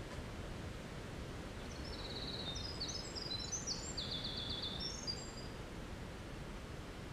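Winter wren singing a fast, jumbled song of high notes and quick trills for about three and a half seconds, starting about two seconds in, over a steady low background noise.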